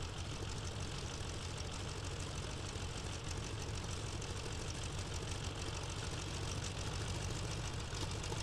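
Biplane's piston engine and propeller running steadily.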